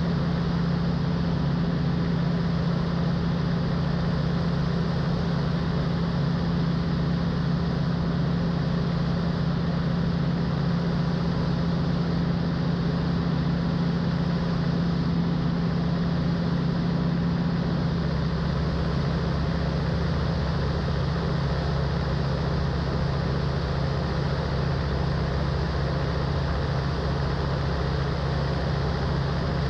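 Van's RV-12's Rotax four-cylinder engine and propeller running steadily, heard from inside the cockpit. About 18 seconds in, the engine note steps down a little as the revs are reduced.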